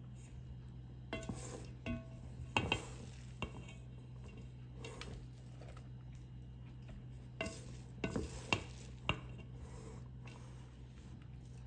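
A metal utensil scraping, stirring and knocking against a cooking pan in irregular strokes, with the sharpest knocks about two and a half seconds in and again around eight and a half seconds. A steady low hum runs underneath.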